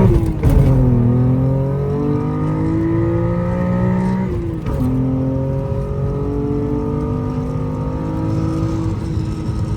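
BMW E36 M3's S50B30 straight-six, with a Ciecko stainless 6-to-1 exhaust and Karbonius intake, pulling under acceleration. Its note climbs steadily, drops once a little over four seconds in as it shifts up, then climbs again.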